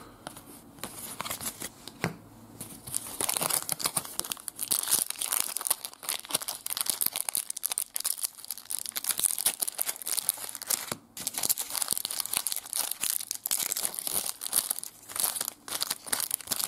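Foil wrapper of a Panini trading-card pack being torn open and crumpled by hand: a long run of irregular crinkling and tearing crackles.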